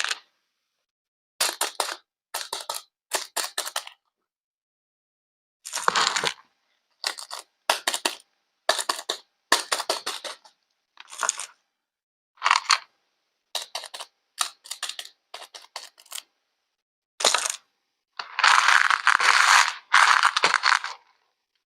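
A string of short scraping and rattling handling sounds, each under a second, separated by dead silence. Near the end comes one longer continuous burst of noise lasting about two and a half seconds.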